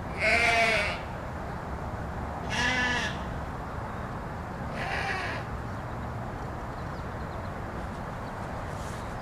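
Sheep bleating three times, about two seconds apart, each bleat quavering; the first is the loudest.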